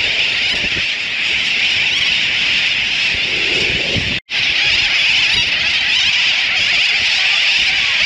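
Dense, unbroken din of a seabird colony, thousands of birds calling at once in a high-pitched chattering wash with no single call standing out. It cuts out for an instant just past four seconds in.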